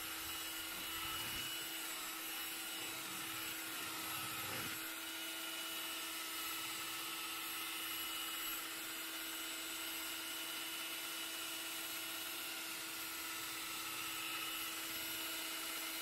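Proctor Silex electric hand mixer running at one steady speed, its beaters churning through thick corn bread batter with a constant motor hum.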